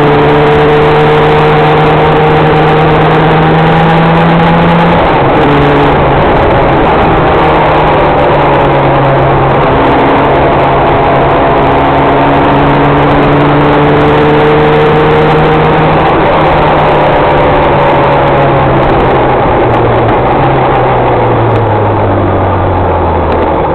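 Motorcycle engine running steadily at cruising speed under a constant rush of wind and road noise. Its pitch dips briefly about five seconds in, then falls steadily over the last few seconds as the bike slows.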